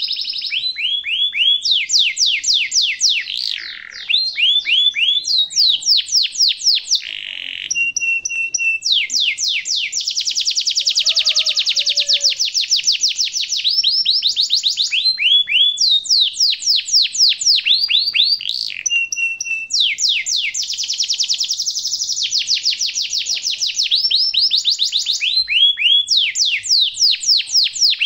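Domestic canary singing without pause in long rolling trills: fast runs of repeated sweeping notes that change phrase every few seconds, broken twice by a short steady whistle.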